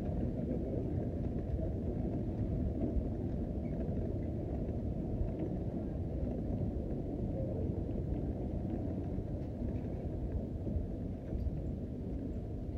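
Muffled, steady low rumble of an airport terminal hall heard while walking through it, with no distinct events standing out.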